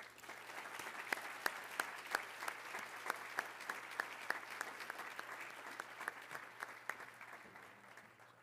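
Audience applauding, many hand claps with single claps standing out, dying away near the end.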